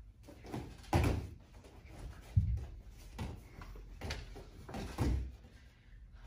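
Feet stamping and landing on foam martial-arts mats during a karate form: a string of dull thuds, the loudest about a second in and about five seconds in.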